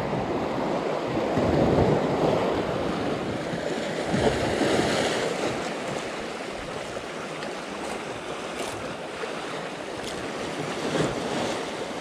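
Sea surf washing and breaking over rocks, a steady rushing that eases off in the second half.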